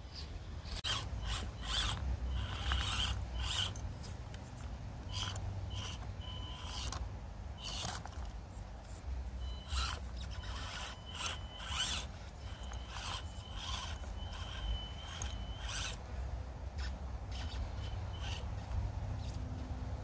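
Axial SCX24 Deadbolt micro RC crawler's small electric motor and gears whining in short stop-start throttle bursts, with its tyres scrabbling over rock, over a steady low rumble.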